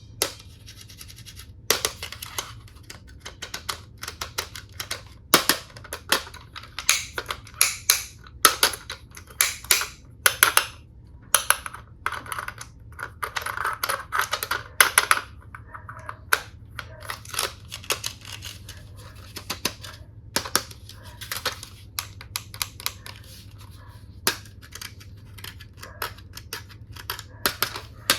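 Hard plastic toy tool pieces being handled, an irregular run of sharp clicks and taps, with a brief stretch of rubbing noise about halfway through.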